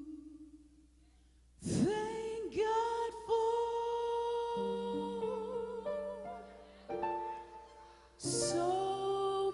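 A recorded song: a singer holding long notes with vibrato. A brief pause comes about a second in, before the next phrase begins.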